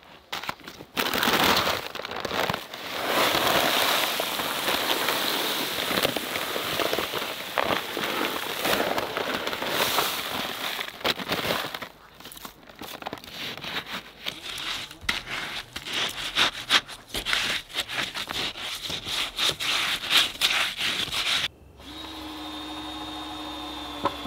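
Dry Sakrete concrete mix poured from its paper sack into a post hole around a wooden post: a steady rushing hiss of the pouring mix for about ten seconds, then crackling and rustling of the paper bag and settling grit. Near the end it changes abruptly to a quieter steady hum with a thin high tone.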